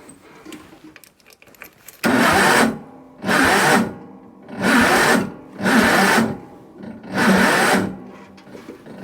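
John Deere 112 garden tractor engine turned over by its starter in five slow, strained surges about a second apart, starting about two seconds in, without ever firing: the engine is too cold to start.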